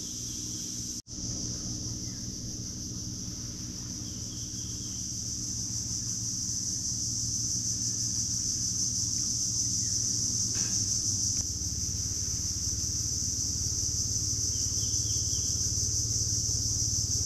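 Insects chirring in a steady high-pitched drone, with a low steady motor hum underneath. The sound cuts out for an instant about a second in.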